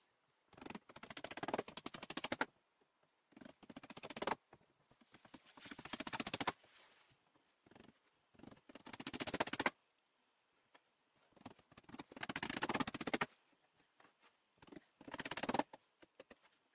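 Sped-up time-lapse audio: bursts of squeaky, chipmunk-like chatter from fast-forwarded voices and assembly noises, in uneven spurts with short pauses.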